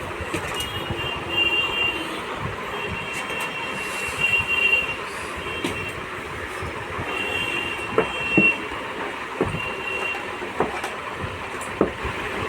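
A PC power supply being handled and set into a metal computer case: a few sharp knocks and clicks, most of them in the second half. Under them runs a steady background noise like distant traffic, with a high whine that comes and goes.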